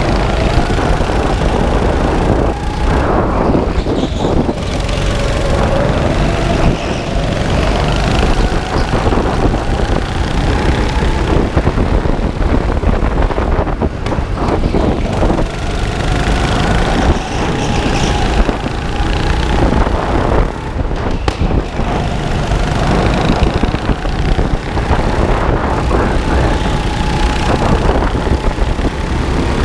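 Onboard sound of an indoor go-kart driven at pace: the kart's motor note rises and falls repeatedly with throttle and speed through the corners, over a steady rumble of vibration and tyre noise on the microphone.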